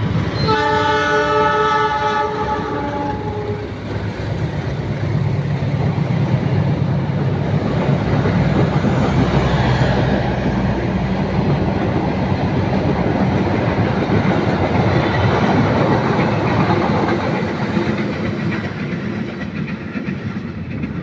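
A train horn sounds for about three seconds near the start, then a passing train keeps up a steady loud rumble of wheels on the rails with a low engine hum.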